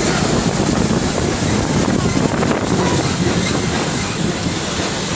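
Safari ride truck driving along a rough dirt track: a steady rumble of the vehicle and road noise.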